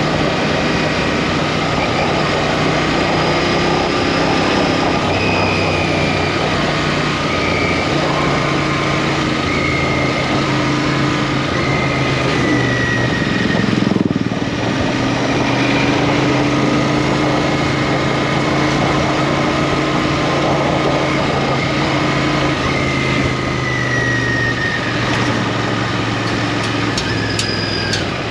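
Royal Enfield Interceptor 650's parallel-twin engine running steadily under way, over a constant rush of road and wind noise. The engine note shifts slightly lower about halfway through.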